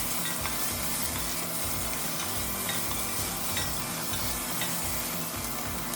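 Bell peppers sizzling in hot olive oil in a pot, a steady hiss, while a utensil stirs and scoops them, with a few light ticks against the pot.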